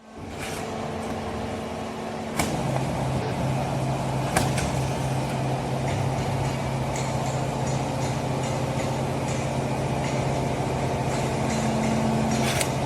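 Hydraulic cardboard baling press running: a steady machine hum that settles to a lower tone with a sharp click about two seconds in, with a few scattered clicks and knocks.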